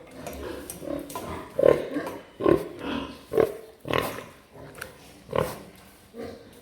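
Large Hampshire pigs grunting in a pen: a string of short grunts, about one a second, fading toward the end.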